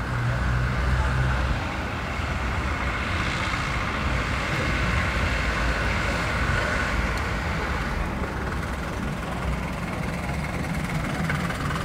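Wismar railbus running as it rolls slowly along narrow-gauge track, a steady low engine rumble that is strongest in the first second or so.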